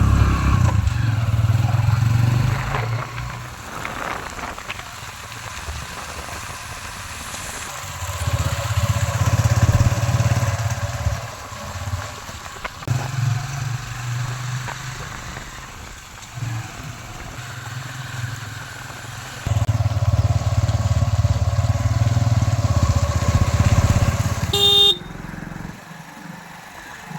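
Heavy diesel farm-machinery engine running under varying load, rising in several spells of revving and falling back between them. A brief high beep near the end, after which the engine sound drops off suddenly.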